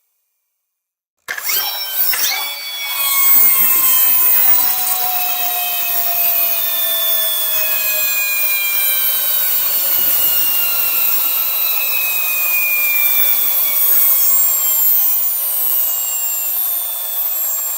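A kids' toy car's small motor and gears start with a few clicks and then run with a steady, high whirring, its tones sliding slowly down in pitch.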